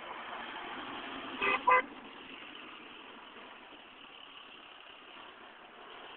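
A car horn gives two short toots in quick succession about a second and a half in, over the steady rush of passing road traffic.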